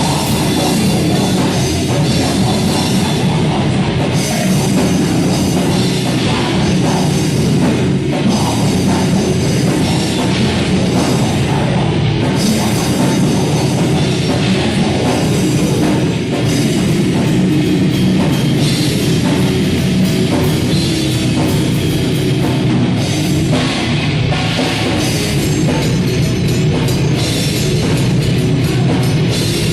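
A heavy metal band playing live, with distorted guitars, bass and drum kit. The full band comes in at the start after a lone guitar, then plays on at a steady loud level.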